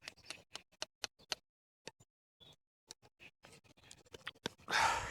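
A homemade wooden bow drill being worked: a run of sharp, irregular wooden clicks and ticks as the spindle turns and slips in its string and notches. Near the end comes a louder, half-second rushing burst.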